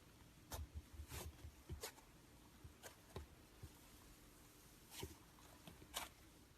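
Clear slime being worked with the hands: quiet, scattered squishes and small sticky pops, about seven in a few seconds.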